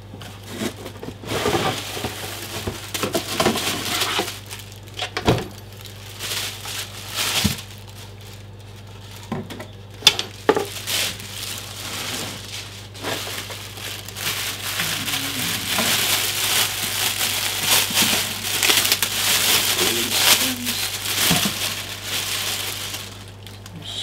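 Plastic packaging crinkling and rustling as parts are unwrapped and pulled out of a cardboard box, with a few sharp knocks as pieces are handled or set down.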